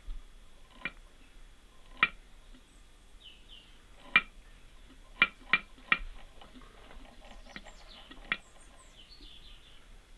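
Carved wooden head's hinged wooden jaw clacking, a series of sharp, uneven clicks as it is worked open and shut.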